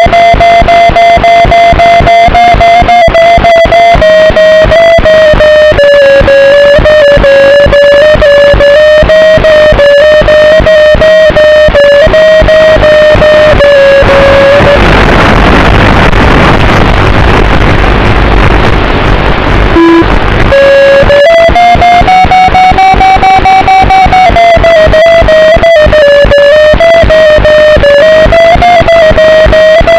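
FPV racing drone's brushless motors and propellers whining loudly with a buzzy, distorted edge, the pitch drifting up and down with throttle. About halfway through the whine drops out into a rushing wind noise with a low rumble for several seconds, then the motors spool back up.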